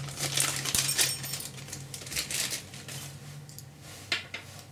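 Small plastic bag crinkling as it is handled, with light clicks and ticks of small parts being set down on a tabletop; the clicks are dense in the first half, sparse later, with a couple of louder ones near the end. A low steady hum runs underneath.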